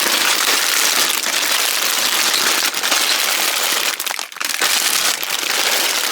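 Plastic bags of building bricks being handled, crinkling and crackling, with the small plastic parts inside rattling. It is loud and continuous, with a short lull about four seconds in.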